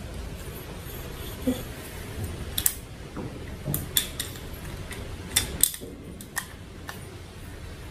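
Metal parts on the gearbox head of a Stihl brush cutter clicking and clinking as the cup/thrust plate is turned by hand and locked with the locking pin so the cutting attachment can be loosened. About eight sharp, irregular clicks.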